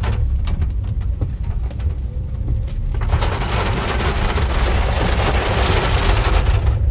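Heavy rain falling on a car's roof and windscreen, heard from inside the car: a steady hiss with scattered sharp drop ticks over a constant low rumble. The hiss grows louder about three seconds in.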